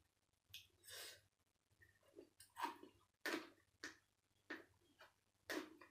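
Soft close-up eating sounds: chewing and lip smacks in short, separate bursts, about one every half second to second, as finger food is taken into the mouth and chewed.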